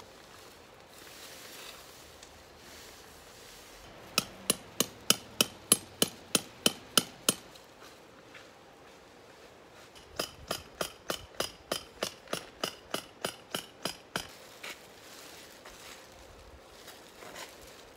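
A metal camping hammer driving steel tent pegs: two runs of quick, even blows, about a dozen and then about seventeen, at roughly four a second, each with a short metallic ring.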